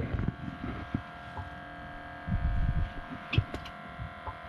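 A steady hum made of several even tones, with dull low thumps around two and a half seconds in and again shortly after.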